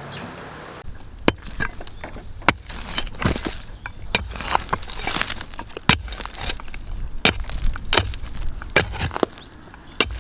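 Metal hand tools striking and scraping on broken concrete and rubble: sharp, irregular hits a second or so apart, with scraping between them, starting about a second in.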